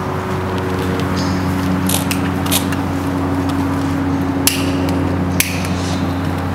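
A steady low mechanical hum with a few sharp clicks over it.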